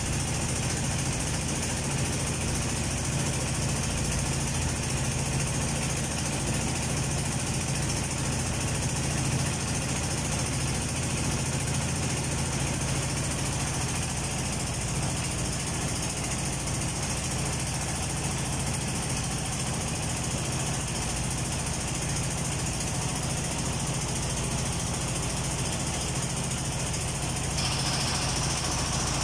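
Boat engine running steadily as a low, even drone, heard from on board while the boat moves across the river.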